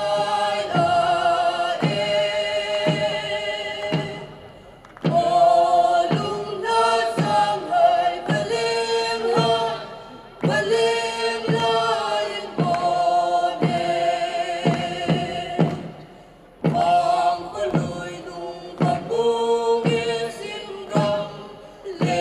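A group of singers sings a folk song together over a steady drum beat, in phrases of about five seconds with short breaks between them.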